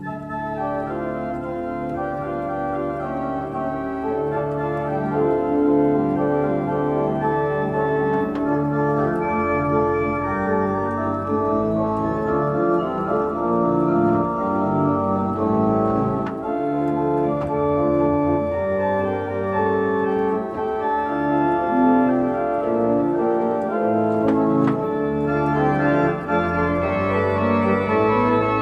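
Church pipe organ built by Kemper of Lübeck being played: a piece of sustained chords over a moving line of held bass notes.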